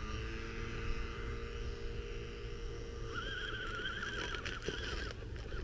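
Electric motor of an RC crawler's weed-cutter attachment whining at a steady pitch after a slight rise, for about three seconds. About three seconds in, a higher wavering whine takes over, with scattered clicks and snaps.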